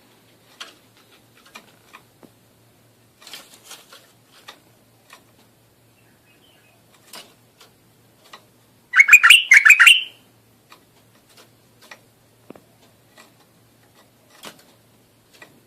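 Iraqi bulbul (white-eared bulbul) calling: scattered faint short chirps, then one loud burst of quick song notes about nine seconds in, lasting about a second.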